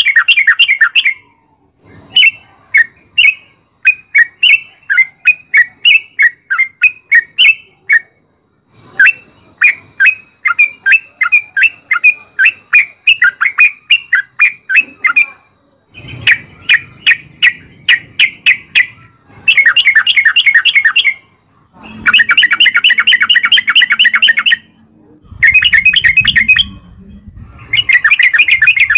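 Yellow-vented bulbul (trucukan) singing its long rolling song: rapid runs of clear, bubbling notes in phrases of one to three seconds, with short pauses between them.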